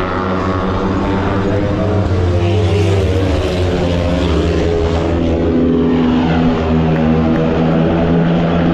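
Speedway motorcycles running hard around the dirt oval, their 500 cc single-cylinder methanol engines loud and continuous, the pitch rising and falling as the bikes go through the bends.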